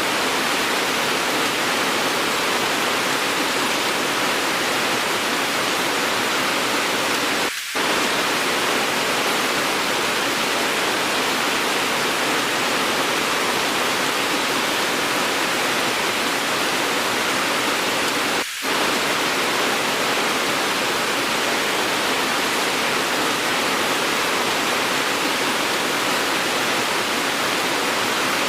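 Steady, dense rain sound, an even hiss, briefly dipping twice, about a third of the way in and again about two thirds in.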